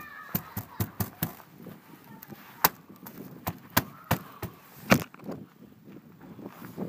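Sharp, irregular clicks and cracks of a sheet of ice glazing a truck window as a thumb presses on it and breaks it. The two loudest cracks come about two and a half and five seconds in.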